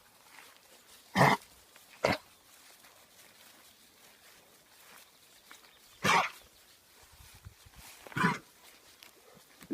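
An animal giving four short, harsh, cough-like bursts: two about a second apart, then two more spaced a few seconds apart. They may be a cough, which the owner is unsure of.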